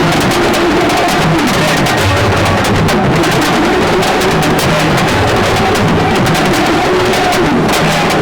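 Music driven by dense, fast drumming, with wavering melodic lines over the drums.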